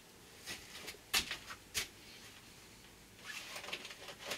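Three light, sharp clicks and knocks, then about a second of scratchy rustling with small ticks near the end: hand work on a pine batten cabinet frame, with timber and clamps being handled.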